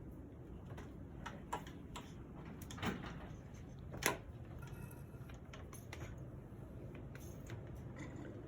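Scattered small clicks and knocks from handling a hand siphon pump, oil bottle and tubing while slowly pumping new oil into a supercharger, with two louder knocks about three and four seconds in, over a low steady hum.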